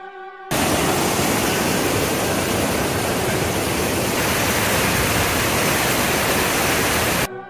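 Whitewater of a rushing mountain creek, a loud, steady rush of water. It cuts in sharply about half a second in and cuts off just as abruptly near the end.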